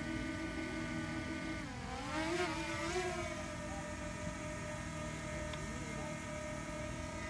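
DJI Mini 2 drone's propellers whining steadily as it hovers close by. Just under two seconds in, the pitch dips and then swings back up as the motors change speed.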